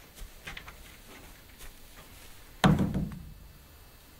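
A single loud thump about two and a half seconds in, sharp at the start and fading over about half a second, after a few faint clicks and rustles.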